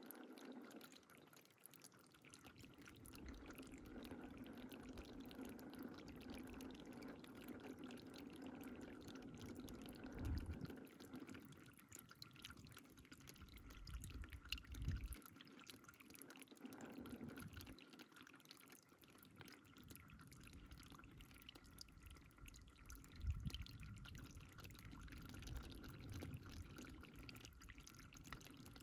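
Faint water running steadily, pouring and dripping, with a few soft low thumps.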